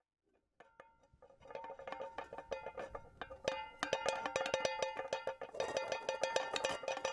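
Rapid clinking and tapping of small hard objects over a steady ringing tone, starting about half a second in, sparse at first and growing denser and louder.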